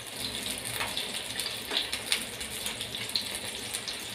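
Chicken seekh kebabs sizzling and crackling in hot oil in a frying pan, with a few light clicks as a metal spoon turns them over.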